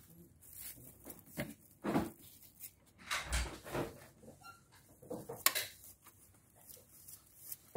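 Plastic clicks and knocks as a ribbon roll and take-up core are fitted onto the spindles of a Zebra ZD621 thermal transfer label printer, with one sharp snap a little past halfway.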